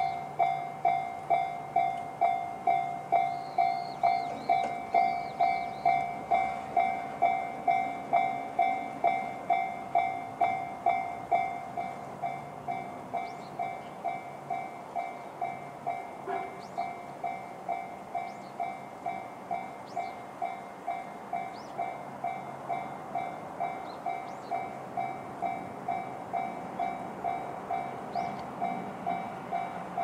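Japanese railway level-crossing alarm sounding the JR standard tone: an electronic ding repeating evenly about twice a second, warning that a train is approaching. It drops to a lower volume about twelve seconds in.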